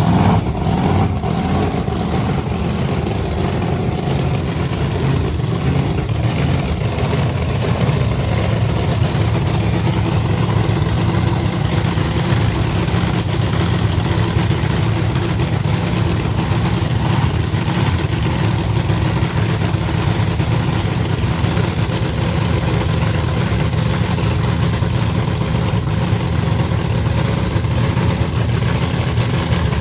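An engine idling with a steady, even low drone.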